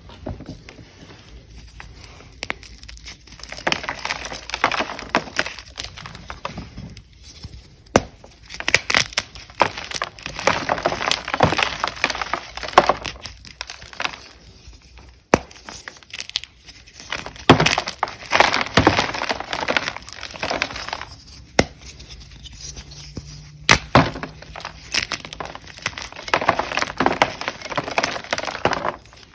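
Ader gym chalk (magnesium carbonate blocks) being crunched and crumbled, in crisp, irregular bursts of cracking with sharp snaps among them.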